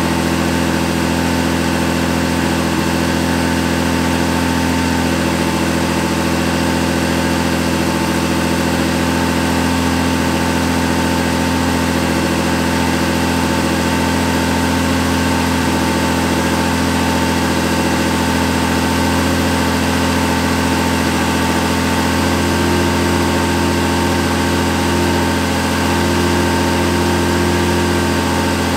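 Mercedes-Benz 190E's 2.6-litre M103 straight-six idling steadily on its own, running on a newly wired standalone EFI ECU.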